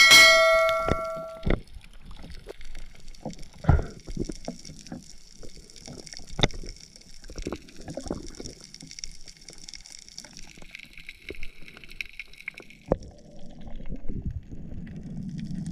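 Underwater sounds as a spearfisher handles speared snappers on the spear shaft: a short ringing clink at the start, then scattered clicks and knocks over a faint crackling hiss. Near the end a low rush of water sets in as he swims on with the speargun.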